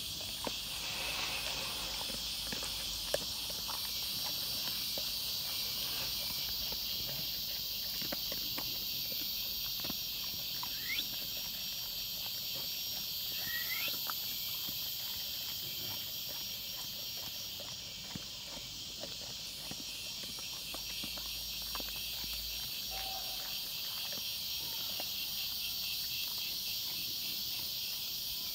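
A dog eating dry kibble, its chewing heard as scattered small crunches and clicks, over a steady high insect chorus of crickets chirring. A few short rising chirps sound near the middle and again near the end.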